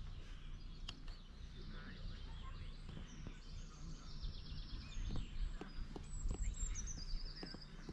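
Small birds chirping and singing over a low, steady background rumble. There is a quick high trill about halfway through and a run of falling high notes near the end.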